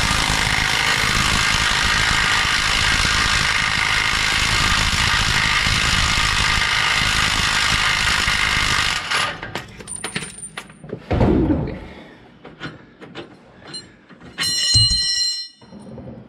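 Cordless half-inch impact wrench, a DeWalt 20-volt XR, hammering steadily on a motorhome's rear shock bolt for about nine seconds, then stopping. Scattered clicks and metal clinks follow, with a short knock and a brief ringing metallic clatter near the end.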